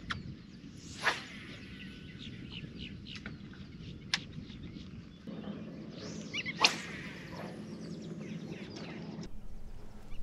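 A spinning rod swishing through the air on casts, twice: a sharp swish about a second in and a louder one a little past six seconds in. Birds chirp in the background throughout.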